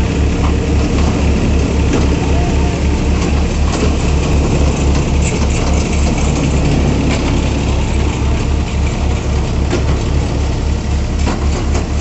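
Malwa multi-crop thresher running at full speed, powered by a Powertrac Euro 50 tractor, threshing paddy as bundles are fed in: a loud steady mechanical din over a fast low throb, with scattered clicks and rattles from the crop going through the drum.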